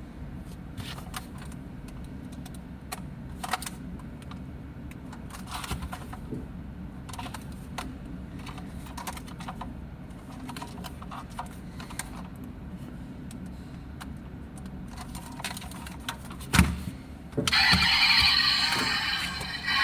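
Scattered small clicks and taps of a 1:24 die-cast pull-back toy car being handled, then a sharp knock. Near the end the toy's built-in sound chip plays a loud electronic engine sound through its small speaker.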